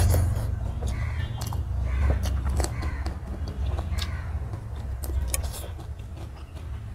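Close-miked eating sounds: wet chewing and lip smacking on a mouthful of rice and chicken curry eaten by hand, with many small sharp clicks throughout.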